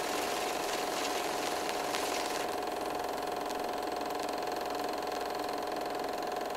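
Film projector running: a steady mechanical whir with a constant humming tone and a few faint clicks.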